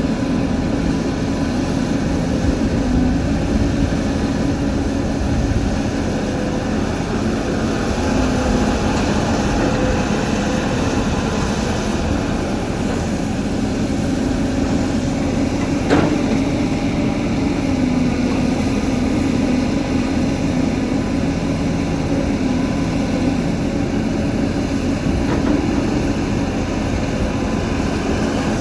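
CAT 320 excavator's diesel engine running steadily under working load, with a single sharp knock about halfway through.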